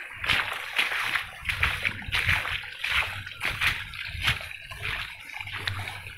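Footsteps splashing and sloshing through shallow standing water on waterlogged grass, a splash about every half second.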